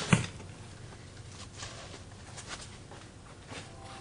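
Light handling sounds: a sharp knock at the start, then a few faint scattered taps and rustles. A faint steady hum comes in near the end.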